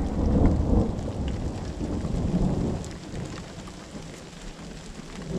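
Rain falling steadily in a thunderstorm, with scattered raindrop taps. A low rumble of thunder is loudest over the first three seconds, then dies away.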